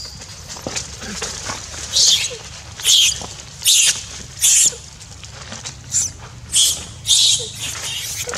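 Young long-tailed macaque screaming: a run of short, shrill, high-pitched cries about one a second. These are distress screams of a monkey being attacked.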